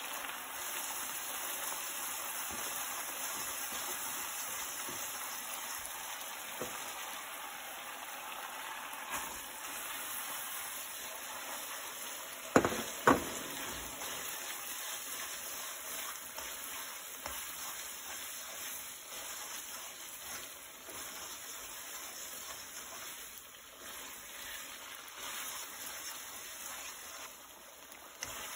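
Cheese sizzling and frying in a nonstick frying pan, browning into a crisp cheese sauce as spaghetti is tossed through it with tongs. The hiss eases a little toward the end, and two sharp knocks come close together a little before halfway.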